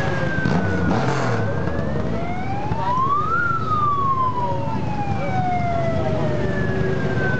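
Ambulance siren wailing slowly. Its pitch falls, rises to a peak about three and a half seconds in, then falls slowly again, over the steady rumble of many motorcycle engines.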